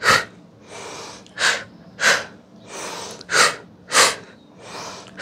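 A woman's forceful audible exhales in pairs, two sharp pulses about half a second apart, each pair preceded by a softer inhale. The pattern repeats three times, about every two seconds.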